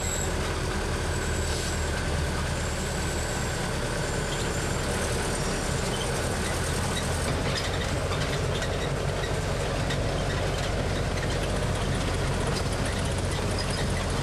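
Engine drone and road noise of a resort tour tram driving along a rough dirt track, heard from inside the open tram, steady throughout with a haze of small knocks and rattles.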